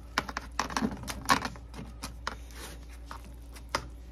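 Plastic spatula scraping and knocking in a disposable aluminum foil pan, with foil crinkling: a quick run of sharp clicks, densest in the first second and a half, then a few scattered taps.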